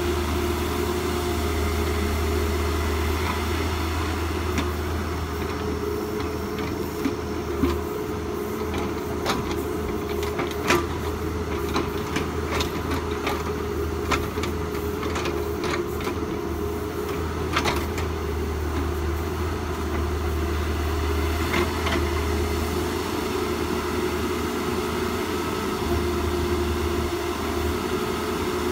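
An engine running steadily, a constant low hum, with scattered sharp clicks and knocks through the middle.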